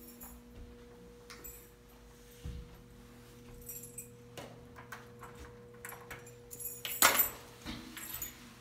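A bunch of keys jingling in hand with the walker's steps, a louder jangle about seven seconds in, over a steady low hum.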